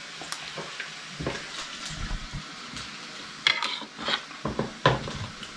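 Food frying in a pan on a gas stove, a steady sizzle, with a few clicks of a metal spoon against a plate.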